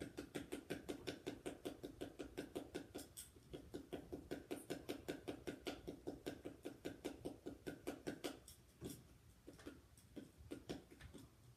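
Paddleball toy: the rubber ball on its elastic string tapping the paddle in a fast, steady rhythm, several hits a second, with a short break about three seconds in. A little past halfway the rhythm breaks down into a few scattered taps as the ball is missed.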